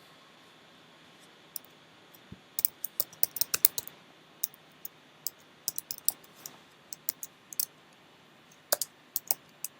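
Typing on a computer keyboard: irregular runs of key clicks, a quick flurry about three seconds in and scattered keystrokes after, over a faint steady hum.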